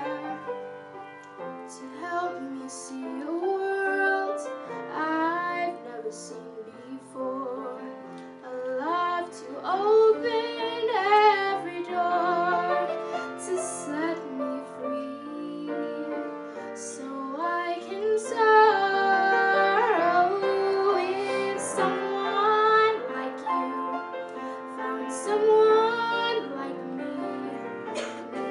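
A young woman singing a slow ballad into a microphone, accompanied by grand piano, with long held notes sung with vibrato.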